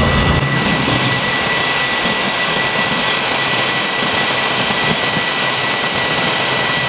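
Hot air rework station blowing steadily: a loud, even hiss with a thin steady whine, as it heats a surface-mount voltage-regulator transistor to desolder it from the radio's board.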